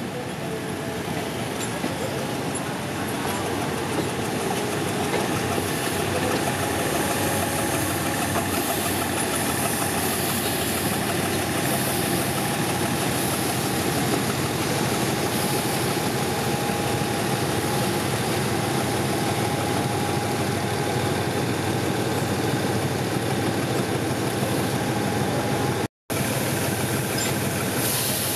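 Alsthom diesel-electric locomotive's engine running steadily at a low, even throttle, a constant hum with no change in pace. The sound breaks off for an instant near the end.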